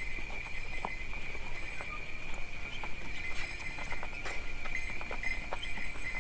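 Sleigh ride sounds: horse hooves clip-clopping at an uneven pace over a steady jingle of sleigh bells.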